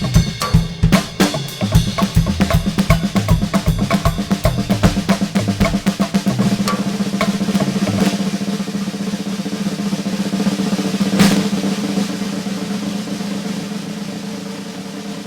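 Drum kit played fast, with dense snare and bass drum strokes, settling about six seconds in into a continuous drum roll. A single loud cymbal crash comes about eleven seconds in, then the roll fades slowly.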